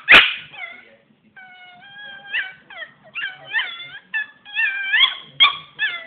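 A Miniature Pinscher puppy whining: a sharp yap at the very start, then a string of high-pitched, wavering whimpers that rise and fall in pitch.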